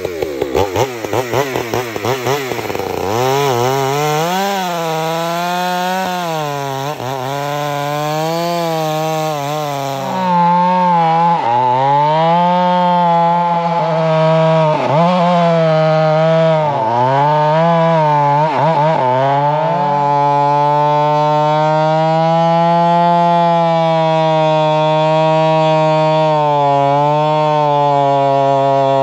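Stihl MS 462 two-stroke chainsaw noodling a log round, cutting along the grain. The engine's pitch repeatedly sags and recovers as the chain bites and clears, then holds steady under load through the last third.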